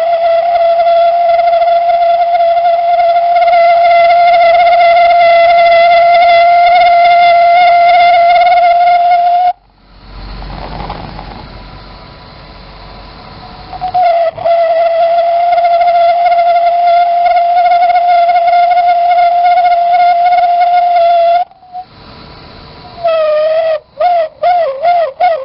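Toyotomi laser burner heater resonating with a loud, steady whistle-like tone, one held pitch with overtones, like a steam whistle. The resonance comes from the burner being starved of air. It breaks off twice into a quieter rushing sound and comes back, wavering up and down near the end.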